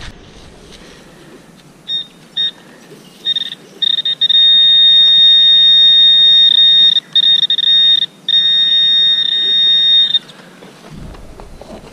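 Handheld metal-detecting pinpointer sounding over a buried metal target as its tip is pushed into the soil. It gives a few short high beeps, then a near-continuous steady high tone with brief breaks, stopping near the end.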